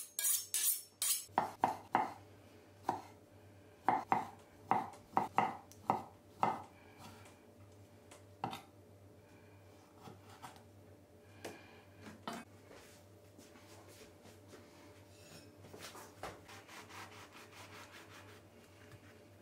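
Kitchen knife chopping food, likely a pickle, on a cutting board: sharp irregular knocks bunched in the first few seconds, then only a few, then a quick run of faint taps near the end.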